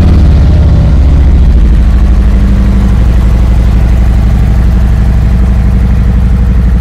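2019 Harley-Davidson Street Glide Special's Milwaukee-Eight 114 V-twin idling steadily and loudly with an even, pulsing beat.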